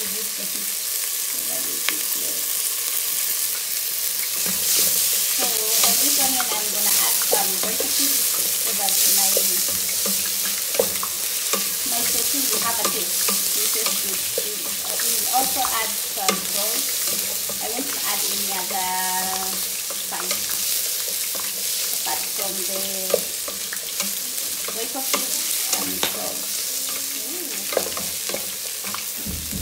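Sliced red onions sizzling in a little oil in a metal pan, stirred with a wooden spoon that scrapes and ticks against the pan.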